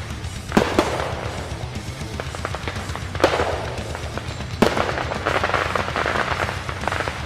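Fireworks going off: sharp booms about half a second, three seconds and four and a half seconds in, then a dense patch of crackling. Music with a steady low bass plays underneath.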